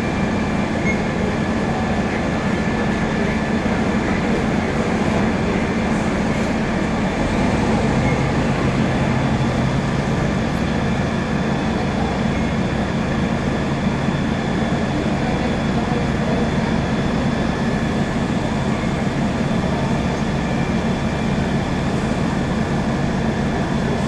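Fire engine's diesel engine running steadily at the scene, a constant low hum with engine tones; a second, lower tone joins about eight seconds in.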